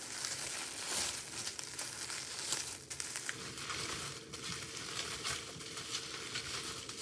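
Wrapping crinkling and rustling, with small crackles throughout, as it is pulled off a wrapped candle by hand.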